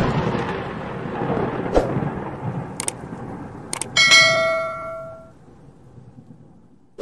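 Intro-animation sound effects: a crackling electric burst that fades away, then several sharp mouse-click sounds and, at about four seconds, a bright bell-like ding that rings out for about a second, the notification-bell chime of a 'subscribe' animation.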